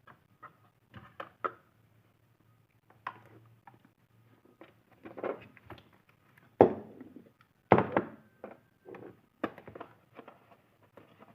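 Hands handling a phone box and its packaging: scattered clicks, taps and rustles of cardboard and plastic, with two louder knocks a little past the middle.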